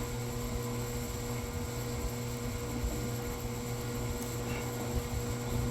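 Steady low electrical hum over a faint hiss, with no distinct tool or work sounds.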